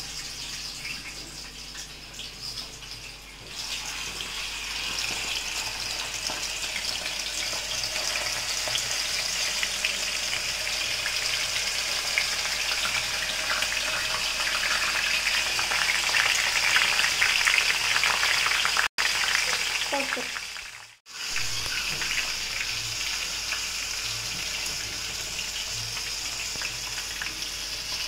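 Potato fries deep-frying in hot oil in an iron wok, a steady crackling sizzle that gets louder a few seconds in and breaks off briefly twice.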